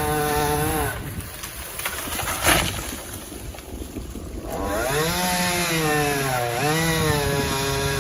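Two-stroke chainsaw running at high speed, dropping back near idle about a second in, then revving up again about five seconds in and holding, with brief dips in pitch. A single sharp crack sounds about two and a half seconds in.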